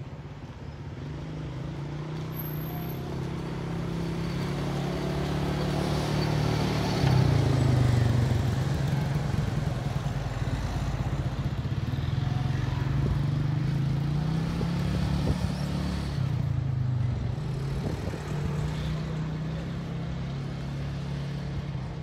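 Motor vehicle engine running close by on the road, getting louder up to its loudest about seven seconds in, its pitch dipping and rising again as it changes speed.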